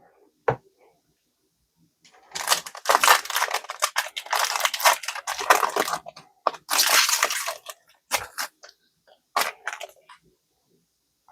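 Foil booster-pack wrapper crinkling as it is torn open and handled, in two long stretches of crackling, followed by a few short sharp clicks near the end.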